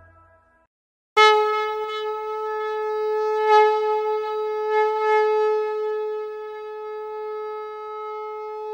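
A conch shell (shankh) blown in one long, steady note, starting about a second in after the music fades out, swelling slightly a few times as it is held.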